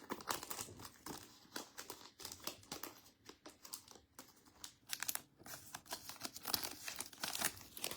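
Wrapper of a Donruss Elite football trading card pack being torn open and crinkled by hand, in quick, irregular crackles.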